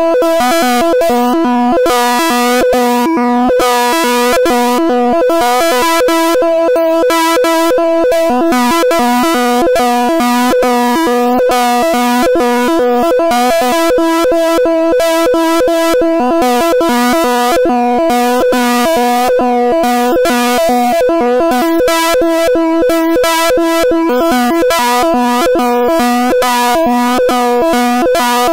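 Python-generated stereo audio signal that draws a rotating wireframe cube on an oscilloscope in X-Y mode, heard as a buzzy, synthesizer-like chord of several held pitches. The chord flutters rapidly and never pauses.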